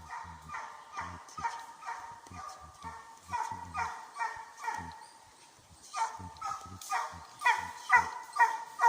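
Russian hound baying on a trail: a run of high, pitched barks about two a second, with a short lull about five seconds in, then louder barks near the end.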